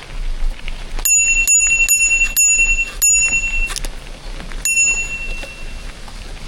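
Bicycle bell on a mountain bike rung five times in quick succession, then once more after a short pause, each strike a clear high ring that dies away.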